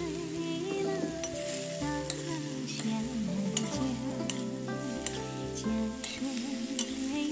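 Noodles being stir-fried in a wok: a metal spatula scrapes and knocks against the pan several times over a steady sizzle. Background music with a melody plays over it.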